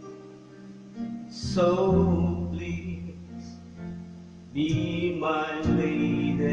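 Music played from a phone over Bluetooth through an amplifier, with held notes and chords; it gets louder about four and a half seconds in.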